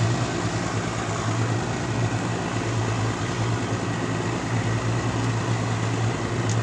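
A small boat's engine running steadily: a constant low drone with an even hiss over it.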